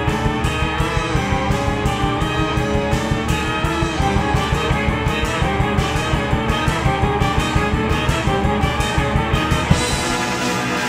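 Background music with a fast, steady beat under held tones; the beat stops near the end.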